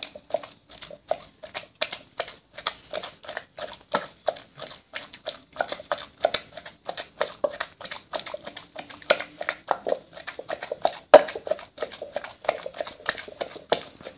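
Pestle pounding a wet chilli and egg paste in a Thai clay mortar: steady knocks about three to four a second.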